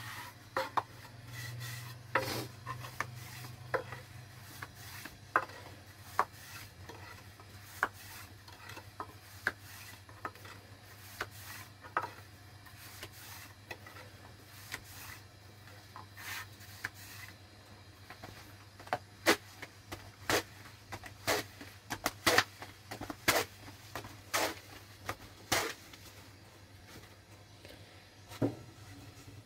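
Thin wooden rolling pin rolling out flatbread dough on a board: rubbing with a run of sharp knocks as the pin taps and clacks, coming about once a second and loudest in the second half. A low steady hum runs underneath.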